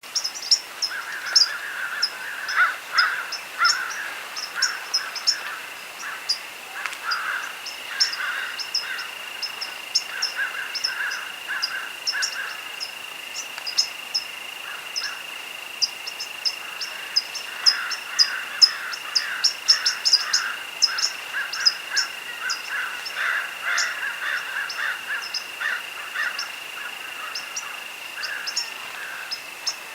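Field chorus at dusk: crickets singing in a steady, unbroken trill, with many short high chirps repeating over it and bouts of lower, rapid chirping calls that swell and fade.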